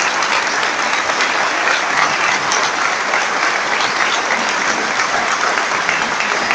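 Large indoor audience applauding steadily, many hands clapping in a dense continuous patter, the crowd standing in an ovation for a speaker.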